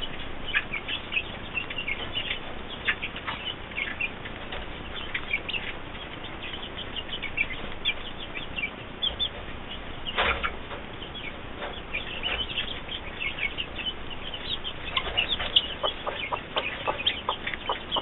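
A newly hatched chick peeping in many short high chirps, with a broody hen clucking now and then as she shows it the feed. The hen's clucks are stronger about ten seconds in and in a quick run near the end.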